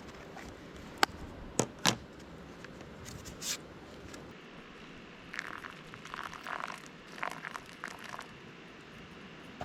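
Three sharp clicks about a second and a half apart, a short rush of noise, then a stretch of irregular crinkling and rustling, like things being handled.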